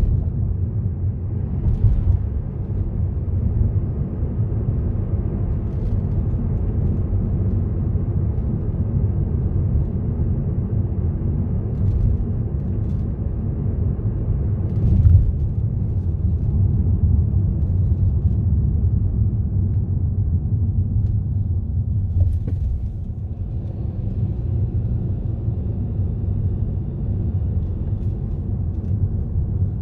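A car driving along a road: a steady low rumble of engine and tyre noise, with a few brief knocks, the loudest about 15 seconds in.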